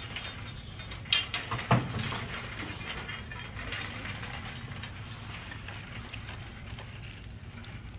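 A few sharp clacks a little over a second in, then a steady low background hum of store room tone.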